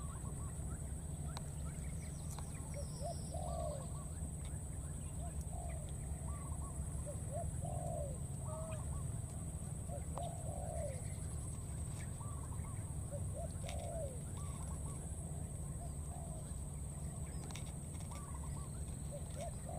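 Short arched animal calls, each rising and falling, repeated every second or two over a steady low rumble.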